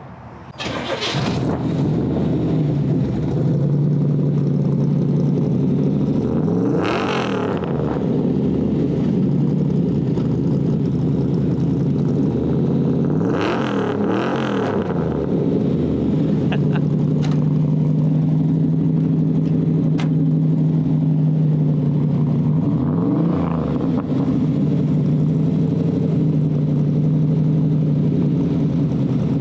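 A 500-horsepower Blueprint Engines 383 small-block V8 in a 1968 Chevy C10 pickup cranks and fires just under a second in, then settles into a loud, steady idle. It is revved briefly three times, with the pitch rising and falling back each time.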